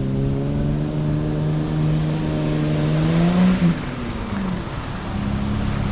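Off-road 4x4 engine revving under load, its pitch climbing steadily for about three and a half seconds, then dropping off suddenly and settling to a lower, steadier run.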